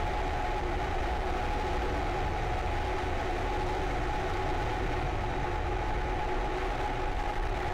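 Starhopper's single Raptor rocket engine firing steadily in flight, a continuous rumble with a steady low drone and no breaks.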